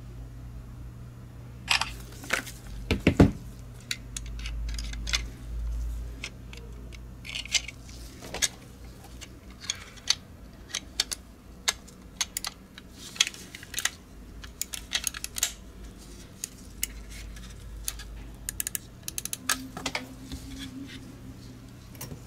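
Plastic shell and click-cover parts of a Logitech G Pro X Superlight mouse being handled and fitted together by hand: irregular light clicks, taps and small clatters, clustered thickly through the second half.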